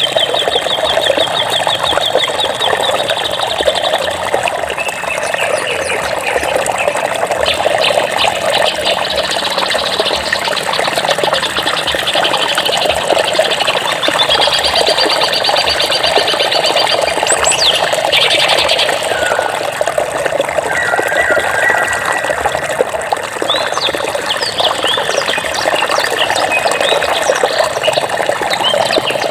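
Running water with a steady rush, and several songbirds chirping over it. There are rapid high trills at the start and again around the middle, and short sweeping calls near the end.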